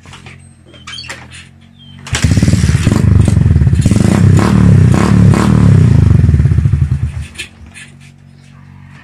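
Bajaj motorcycle's single-cylinder engine, just fitted with a 24 mm carburettor, idling low, then revved hard for about five seconds from about two seconds in, and dropping back to a low idle. The engine dies at idle on the untuned carburettor, which still needs jetting and a higher idle screw setting.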